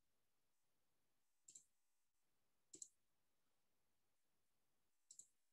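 Three faint computer mouse clicks, each a quick pair of ticks, spaced irregularly with the last near the end, against near silence.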